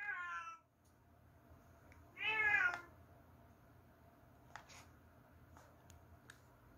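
A cat meowing twice: a short call falling in pitch right at the start, then a louder, longer call about two seconds in that rises and falls. A few faint clicks follow.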